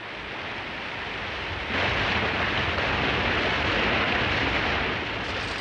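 Sustained rush of surging, churning water as a mass of water heaves up out of a lake, with a low rumble beneath. It gets louder about two seconds in.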